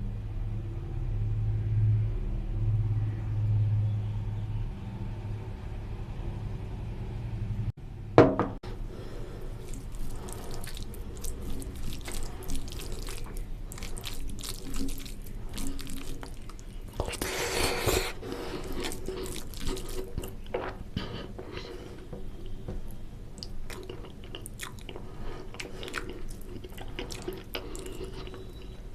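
Wet squelching, smacking and clicking of someone eating oily mutton curry with rice, with a sharp knock about eight seconds in and a louder wet stretch a little past halfway.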